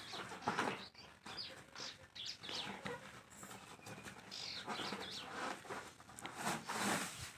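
Cardboard box of a ring fill light being handled and opened by hand: scattered rustles, scrapes and light taps, the loudest about half a second in and near the end.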